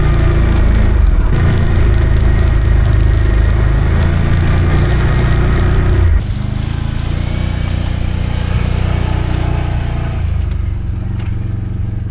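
Can-Am Outlander ATV engine running steadily; its level drops suddenly about halfway through, then it keeps running.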